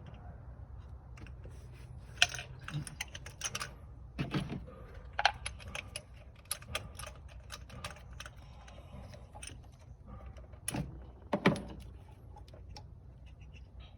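Irregular metallic clicks and clinks of a spark plug socket and extension knocking about in a 2013 Toyota Corolla's spark plug well as the loosened plug is worked out by hand. Two knocks stand out, about two seconds in and near the end.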